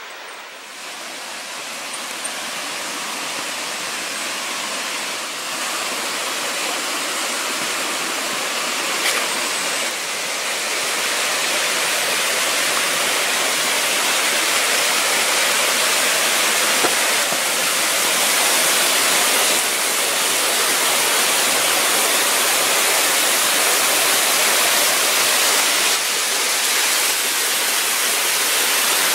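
Creek waterfall rushing steadily. It grows louder over the first half or so, then holds.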